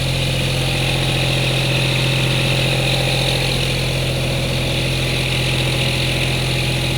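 Homemade battery-powered weed trimmer running steadily: a low hum with a high hiss over it that sounds like a school bus.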